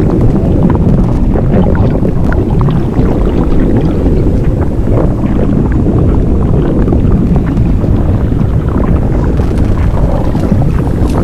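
Blueberry-inflation sound effect: a loud, continuous low rumble with scattered small crackles and ticks.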